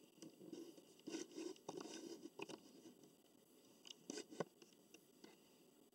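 Faint handling noises: scattered light clicks and rustles as a plate and cup are set down on a table, in two short clusters.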